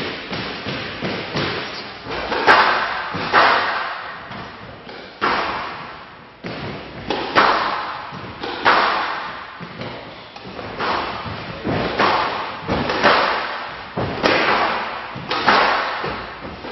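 Squash rally on a glass court: the ball struck by rackets and smacking off the walls in sharp hits every second or so, each ringing on in the hall's echo.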